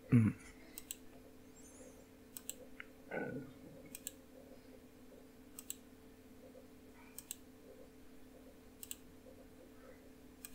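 Computer mouse button clicked about seven times at an even pace, roughly every second and a half, each a sharp press-and-release tick, over a faint steady hum. A brief low sound about three seconds in.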